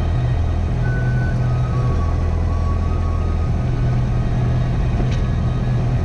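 Steady rumble of a Cessna 172's engine and propeller heard from inside the cockpit, under sustained dark ambient background music whose low notes shift every second or two.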